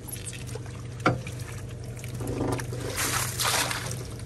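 Mesh crawfish trap hauled up out of swamp water, water trickling and then pouring off it in a louder splash about three seconds in, with one sharp knock about a second in. An outboard motor idles steadily underneath.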